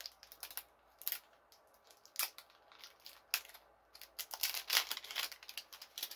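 Thin plastic candy wrapper crinkling and tearing as it is worked open by hand: irregular sharp crackles, busiest and loudest about four to five seconds in.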